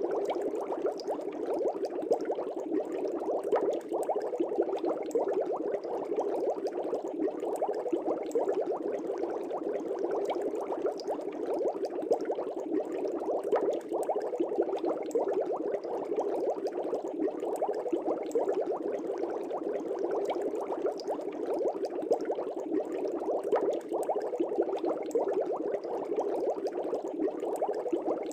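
Air bubbles streaming steadily through aquarium water, a dense, even bubbling with many small pops breaking at the surface.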